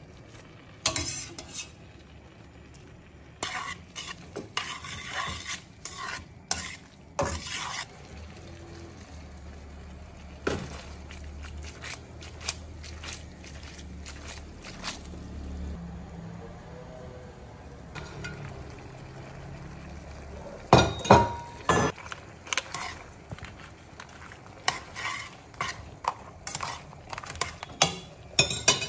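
Spaghetti being stirred and tossed in a wide aluminium pan of tomato sauce: a utensil scrapes and clinks against the metal pan while the sauce sizzles. A cluster of sharp clinks comes a little past two-thirds through, one ringing briefly.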